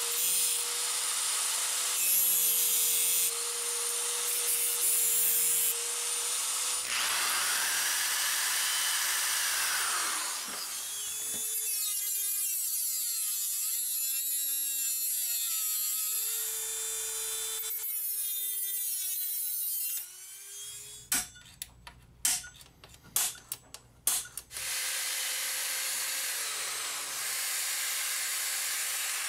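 A run of power tools on sheet metal. An angle grinder cuts a metal plate held in a vise. Then a rotary tool with a cutoff wheel cuts into a metal case, its pitch rising and falling as the load changes, with a few sharp clicks. Near the end a cordless drill drills the case.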